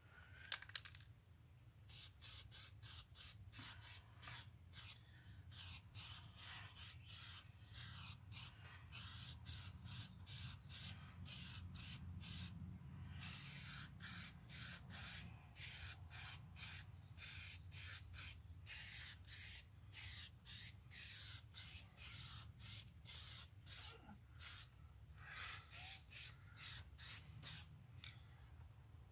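Aerosol spray-paint can hissing in many short bursts, a few held for a second or two, starting about two seconds in. A steady low rumble runs underneath.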